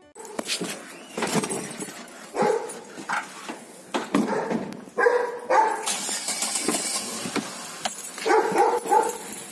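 A dog barking repeatedly, in short separate barks with brief pauses between them.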